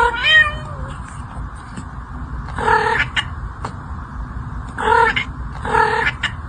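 A cat meowing: one wavering call right at the start, then three short, steady calls, the last two about a second apart.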